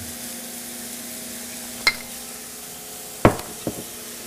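Onions, garlic and oyster mushrooms sizzling in a hot oiled skillet as more olive oil goes in. There is a light clink about two seconds in and two knocks a little after three seconds.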